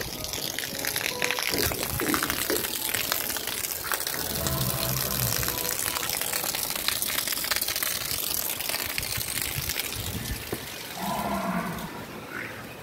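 Jafrabadi water buffalo lowing: one low call of about a second and a half about four seconds in, and a shorter, higher call near the end, over steady rustling noise.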